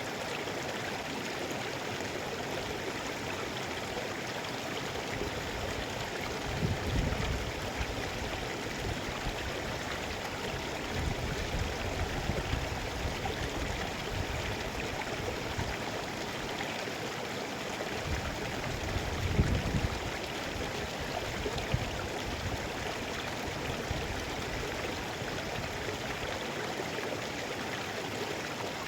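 Mountain river flowing: a steady, even rush of water, with a few brief low rumbling surges scattered through it.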